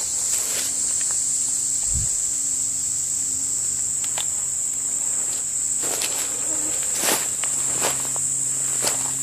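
Steady high-pitched insect drone of a summer woodland, with a few sharp footstep crunches on the gravel creek bed, most of them in the second half.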